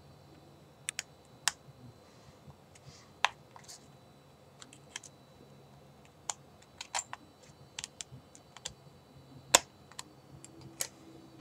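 Irregular sharp clicks and snaps as a thin metal pry tool is worked along the seam between an iPod Color's plastic front and metal back case to pry it open. The loudest snap comes about nine and a half seconds in.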